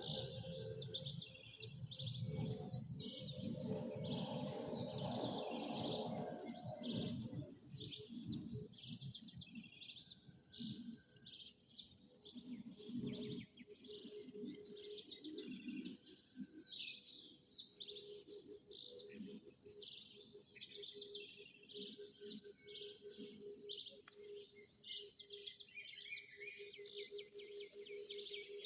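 Birds chirping and calling over a steady, high-pitched insect drone. Low rumbling noise fills roughly the first seven seconds.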